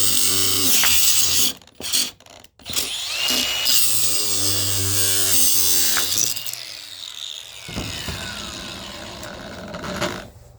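Power tool cutting through an electric motor's shaft: it runs loudly, stops briefly about a second and a half in, cuts again for a few seconds, then winds down with a falling whine after release.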